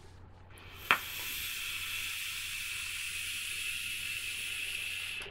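A sharp click about a second in, then a steady hiss for about four seconds as the Coilart Dpro Mini single-coil rebuildable dripping atomizer fires and air is drawn through its fully open airflow holes. The hiss cuts off suddenly.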